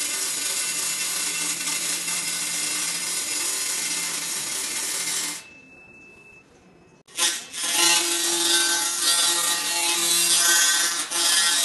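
A 200 W laser cleaning machine firing, its beam ablating the surface with a steady crackling hiss. It stops about five seconds in, leaving a brief faint tone, and starts again, a little louder, about two seconds later, this time stripping oil from a finned radiator part.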